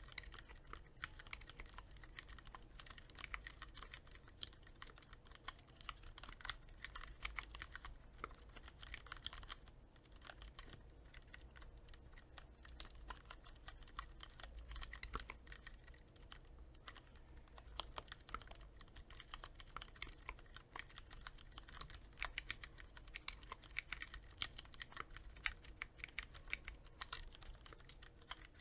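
Continuous typing on a Cherry MX Board 3.0S mechanical keyboard with Cherry MX Red linear switches, lightly lubricated with Krytox 105: a steady stream of quick key clacks, with busier flurries now and then.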